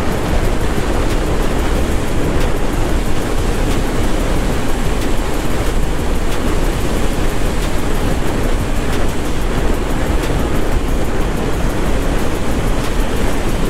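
Steady wind rush over a helmet microphone, with a Bajaj Pulsar NS200's single-cylinder engine running underneath as the motorcycle cruises at road speed.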